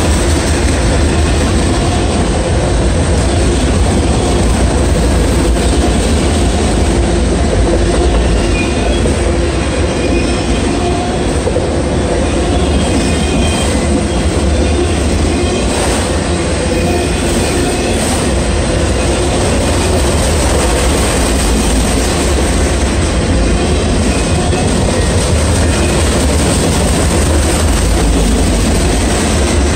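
Freight train of autorack cars rolling past close by: a steady, loud rumble and rattle of steel wheels on the rails, with now and then a faint wheel squeal.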